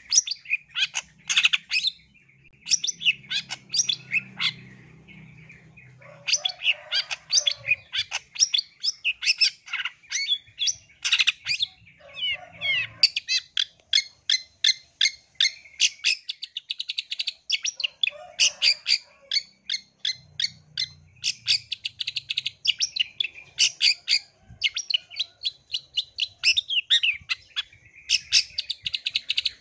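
Long-tailed shrike (cendet) singing a fast, chattering song of short, sharp notes, with a brief lull a few seconds in.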